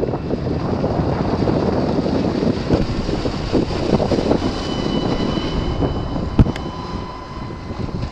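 Wind buffeting the microphone aboard a moving boat: a steady low rumble, with a faint thin whine from about five seconds in and a single knock a little after six seconds.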